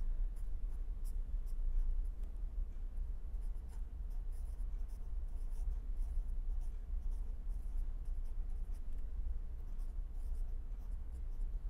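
Pen writing on paper: short, irregular scratching strokes, over a steady low hum.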